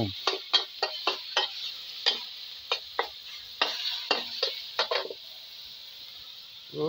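Metal wok spatula scraping and clanking against a steel wok in a quick run of strokes as pork is stir-fried, over a light sizzle of frying oil. The strokes stop about five seconds in, leaving only the sizzle.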